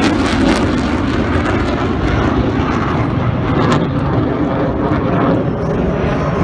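Jet engine noise of a Thunderbirds F-16 fighter flying past: a loud, steady rushing sound whose highest hiss thins out after about four seconds.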